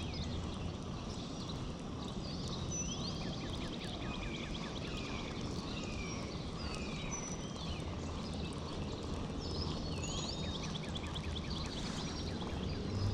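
Songbirds chirping, many short rising and falling calls overlapping throughout, over a steady low background rush.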